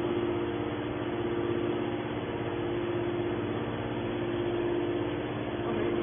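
Hydraulic power unit of a large scrap-metal baler running steadily: an even machine hum with a low steady tone while the press's hydraulic cylinder lifts the top lid.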